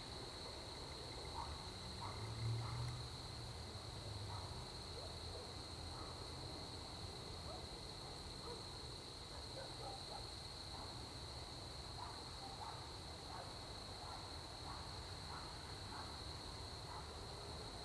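Faint outdoor night ambience: a steady high-pitched drone with scattered short chirps, and a brief low rumble about two and a half seconds in.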